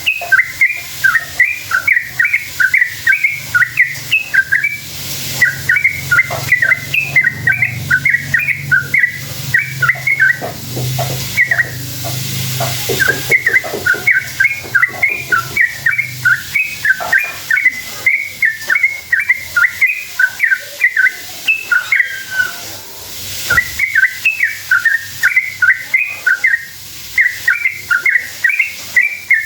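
Yellow-vented bulbul (trucuk) in full song: long runs of rapid, bubbly chattering notes in phrases of several seconds, with short pauses between them. A faint low hum lies under the first half.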